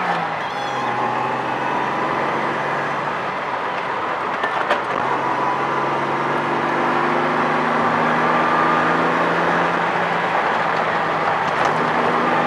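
A Datsun 280Z's 2.8-litre straight-six pulls uphill, heard from inside the cabin. Its pitch drops sharply right at the start, then climbs slowly and steadily as the car accelerates, with road and tyre noise underneath and a single click about five seconds in.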